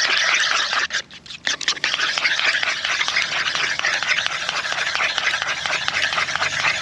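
Eggs being whisked in a bowl: a fast, continuous scratchy clicking that pauses briefly about a second in, then carries on.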